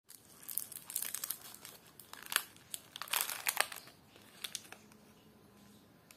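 Foil candy wrapper crinkling and tearing as it is opened from a round chocolate, a dense run of sharp crackles over the first four seconds and a few more about four and a half seconds in.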